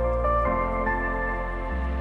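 Calm new-age style instrumental music: held notes over a sustained bass, the melody notes changing every half second or so.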